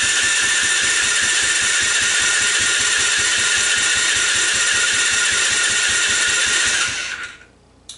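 ATV engine being cranked over by its electric starter for a compression test, with a steady high whine and rapid even pulses of the compression strokes, winding down and stopping about seven seconds in. The gauge reads only 80 again, low compression that the owner means to cure by re-ringing the engine.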